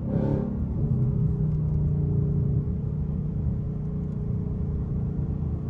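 Ford Mustang GT's 5.0 V8 engine running steadily with a low, even hum.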